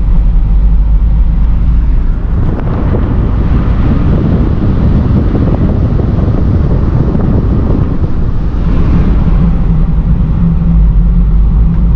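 A car running with a steady low engine hum, and a rushing noise that swells about two seconds in and eases off near the nine-second mark.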